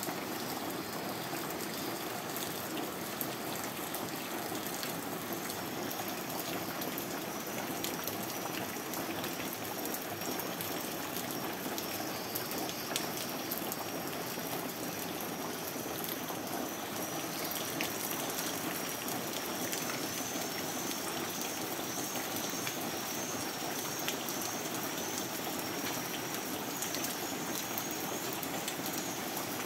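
Steady rain falling on floodwater and a wooden porch: an even hiss with scattered drop ticks.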